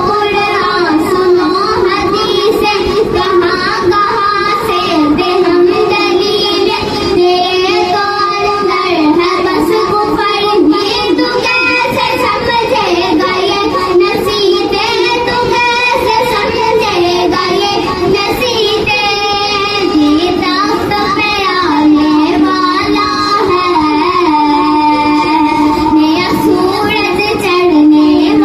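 A young girl singing an Islamic devotional song (naat) into a microphone, one melodic voice with ornamented, gliding phrases and long held notes in the latter part.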